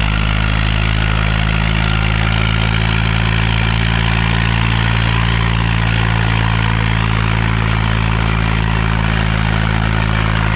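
Swaraj 855 FE tractor's three-cylinder diesel engine running steadily under heavy load, pulling two disc harrows, with no change in its note.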